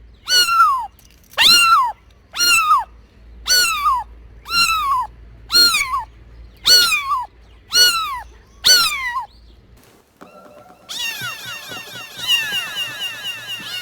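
A cat meowing over and over, about once a second, nine meows in all, each falling in pitch. From about eleven seconds in, a dense chorus of many overlapping high, falling calls takes over.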